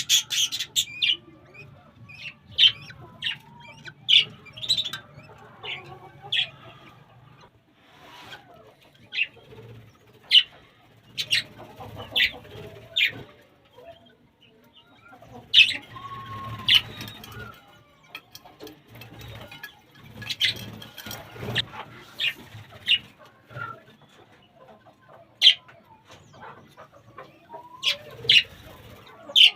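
Pet birds chirping in short, sharp calls at irregular intervals, one to a few every couple of seconds, with some wing flapping.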